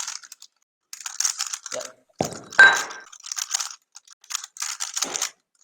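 A speed cube being turned and handled in the hands, giving bursts of rapid plastic clicking and clacking with short pauses between them. A sharper knock with a brief ring comes a little over two seconds in.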